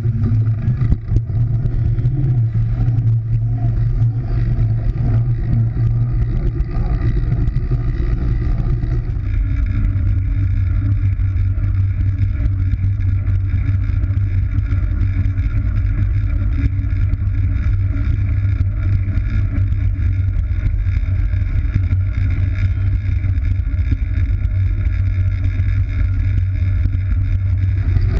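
Wind rushing over the microphone of a camera carried at speed on a track bike around a velodrome: a steady low rumble that shifts slightly about nine seconds in.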